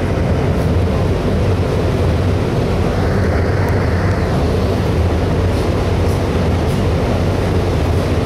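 Spray booth ventilation fan running: a steady deep hum under an even rush of moving air.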